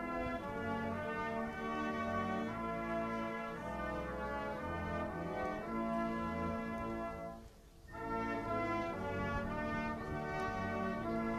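Brass band playing in long held notes and chords, breaking off briefly about seven and a half seconds in before the next phrase.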